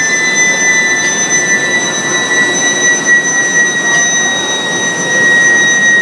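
Induction billet heater whining with a steady high-pitched tone and its overtones, sinking slightly in pitch, over a constant rushing noise from the heating line.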